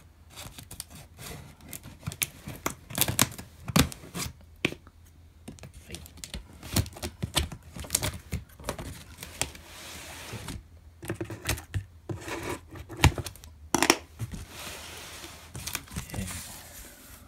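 Scissors snipping and sliding through clear packing tape on a cardboard box, with the tape tearing away and the cardboard rustling. It comes as a string of sharp clicks, with two longer stretches of tearing, one around the middle and one near the end.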